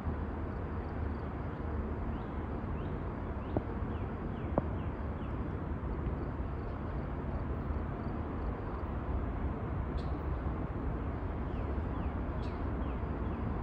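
Steady low rumble, with faint short chirps like small birds and a few brief clicks.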